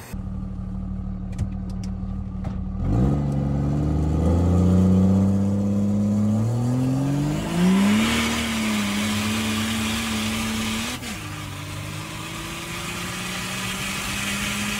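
Cummins diesel engine of a 2006 Ram 2500 accelerating hard, heard from inside the cab, with its exhaust going out through a hood stack. The engine note rises in pitch from about three seconds in, drops briefly near eleven seconds, then holds steady.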